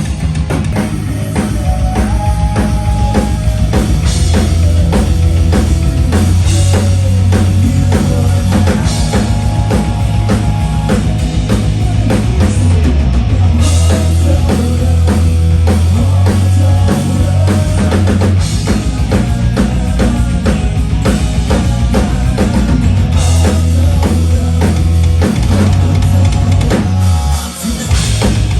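Rock band playing loud and live, with a drum kit, bass and electric guitar; the music drops away briefly near the end, then comes back in.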